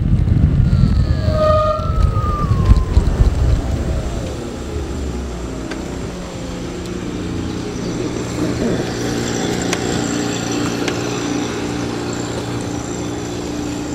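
Zero FX electric motorcycle's motor whine falling steadily in pitch as the bike slows, over wind rumble on the microphone that dies away after about four seconds. It then rolls on slowly with a quieter steady hum.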